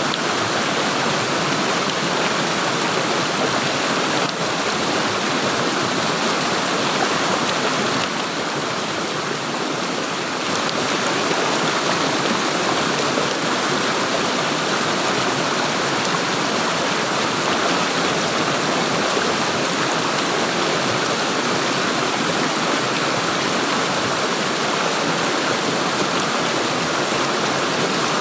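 Water flowing and gurgling steadily, a continuous even rush, dipping slightly in level for a couple of seconds about eight seconds in.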